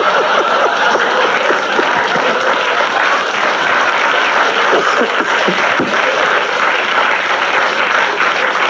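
Studio audience applauding and laughing at length after a joke, a steady wash of clapping throughout.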